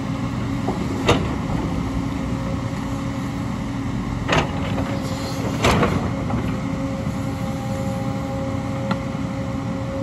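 JCB tracked excavator's diesel engine running steadily as the machine digs rocky soil, with three sharp clanks of the bucket against stone: about a second in, around four seconds, and near six seconds. A thin steady whine comes in from about six seconds.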